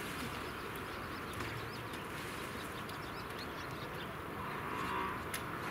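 Snow Peak Land Lock tent's fabric rustling and its poles being handled while a corner is fitted to a pole, over a steady outdoor noise, with one sharp click near the end.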